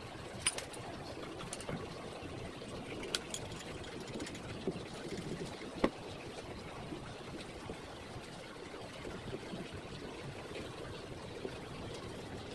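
A few light clicks and knocks from hands adjusting the bed and plate of a manual hot-stamping and die-cutting press, the sharpest knock about halfway through, over a steady background hiss.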